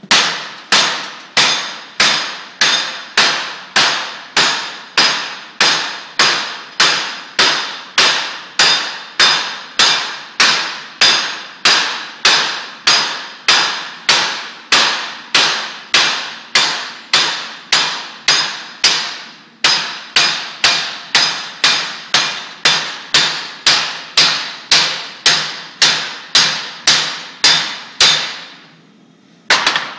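Hand hammer striking a red-hot steel rivet held in a vise to forge its head: steady, ringing metal-on-metal blows about two a second, with a short break about two-thirds of the way through, stopping just before the end.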